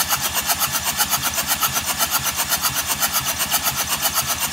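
Mercedes OM651 four-cylinder diesel turned over on its starter motor with the injectors removed, cranking steadily with an even, fast pulsing and not firing. This is the oil-priming crank before the rebuilt engine's first start, with oil pressure building to just above a bar.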